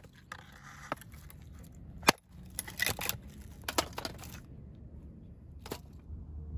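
Small hatchet chopping firewood on a stump chopping block: a sharp crack of blade into wood about two seconds in, the loudest sound, then several more knocks and cracks, and a last one near the end.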